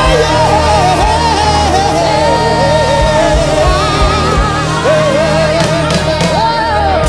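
Live worship music: a singer holding long notes with vibrato over sustained band chords and bass, with occasional drum thumps.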